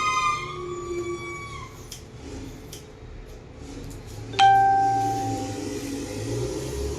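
A warbling, siren-like wail fades out in the first second and a half. About four seconds in, a single bell-like chime is struck and rings out, fading over a second or so.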